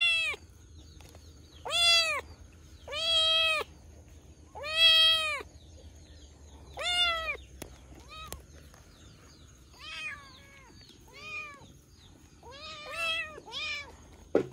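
Several kittens meowing, about ten separate calls, each rising and falling in pitch, louder in the first half and fainter later. A single sharp tap near the end.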